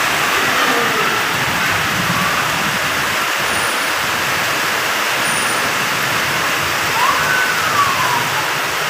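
Heavy rain pouring down in a steady, dense hiss, with vehicles driving through the flooded road. A faint tone rises and then falls about seven seconds in.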